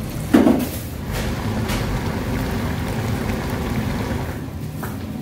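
Soy-sauce marinade splashing as it is poured onto raw crabs, then a shallow pan of braised fish in red chili sauce bubbling at a steady simmer, with a few light clicks near the end.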